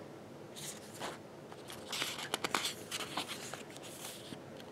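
Paper rustling and sliding as a postcard and glossy photobook pages are handled and turned, with scattered light clicks and taps.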